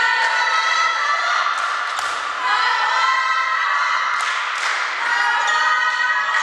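Several young women's voices shouting and cheering together in a large gym hall, with a few short thuds.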